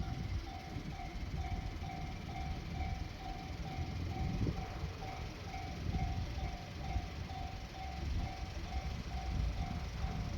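Japanese railway level-crossing warning bell ringing: an electronic ding repeated about twice a second, over a steady low rumble.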